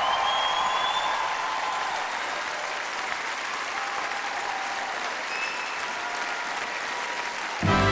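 Large theatre audience applauding steadily. Music comes in suddenly near the end.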